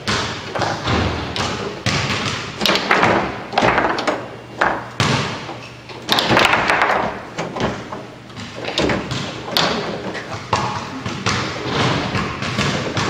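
Foosball table in play: the hard ball struck by the plastic men and banging off the table's walls, with the steel rods knocking as they are slammed and spun. An irregular, rapid run of sharp knocks and thuds.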